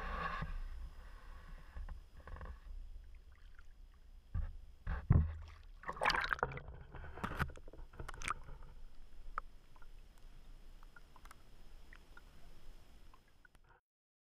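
Water sloshing and splashing as a carp is let go into a river, heard partly from underwater: a muffled, low gurgling wash with several sharp knocks, the loudest about five seconds in. It cuts off suddenly near the end.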